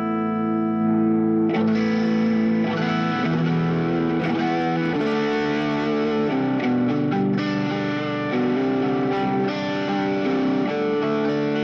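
Electric guitar played through a Vox AC30 valve amp turned up to about halfway: a run of ringing chords and held notes, changing every second or so, with the clean tone just starting to break into a creamy, mild saturation.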